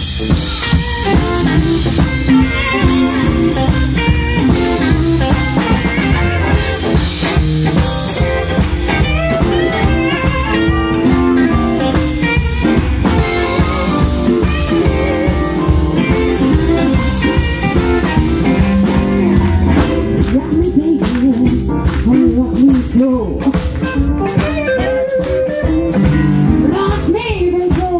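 Blues band playing live: electric guitars over a drum kit, with bass and electric keyboard.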